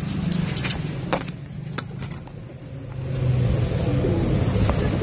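Low rumble of thunder that fades about two seconds in and swells again a second later, with a few faint clicks over it.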